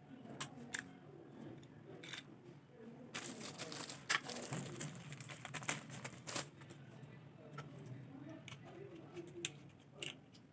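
Packaging being handled while a tripod is unboxed: plastic and paper crinkling and tearing, with scattered clicks and knocks. The densest rustling comes about three to four and a half seconds in.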